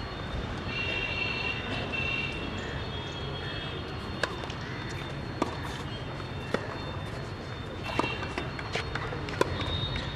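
Tennis ball being hit back and forth in a rally on a hard court: a series of sharp pops, about one every second or so through the second half, over a steady outdoor murmur.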